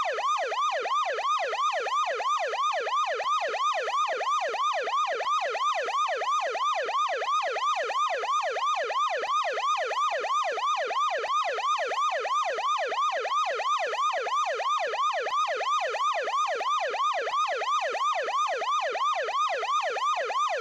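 Ambulance siren in yelp mode: a fast, evenly repeating up-and-down wail at about three sweeps a second, steady and unbroken.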